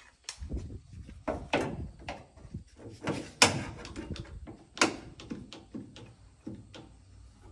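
Sheet-metal floor patch being handled and pressed into place against a car's floor and rocker: irregular knocks and scrapes of metal on metal, the loudest about three and a half seconds in and again near five seconds.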